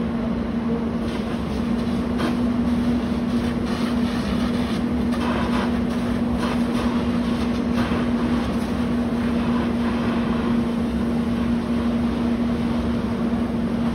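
Steady engine drone: one unchanging hum over a noisy rumble, with a few faint scattered clicks and knocks.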